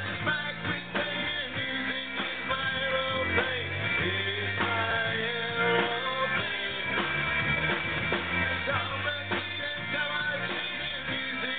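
Live rock band playing: electric guitars, bass and drum kit.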